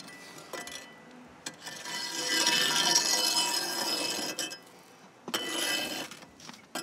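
Flat metal scraper dragging hot coals and ash across a cob oven's floor, the coals clinking against the metal. One long scrape of about three seconds, then a shorter one about five seconds in.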